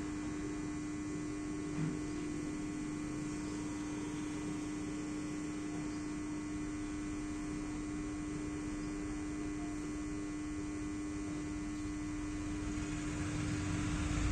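Electric welding machine giving a steady electrical hum over a constant noisy hiss, with one short knock about two seconds in.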